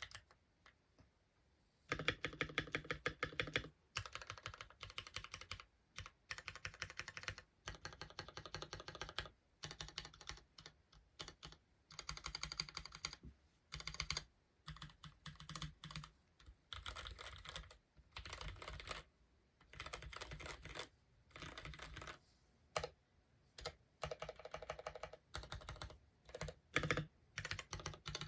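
Typing on a Womier K66 mechanical keyboard with Gateron Milky Black linear switches: fast runs of keystrokes in bursts with short pauses, starting about two seconds in after a couple of lone clicks.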